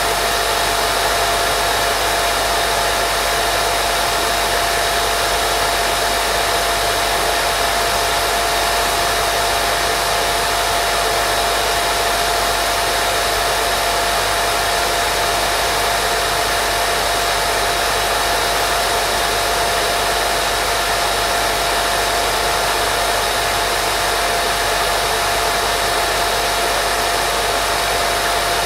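Steady white noise for baby sleep: an unchanging, fairly loud hiss with a constant mid-pitched tone running through it.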